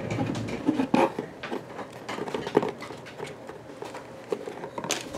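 Scattered light clicks and taps from hands screwing a small spacer onto a bolt through a cardboard kit piece.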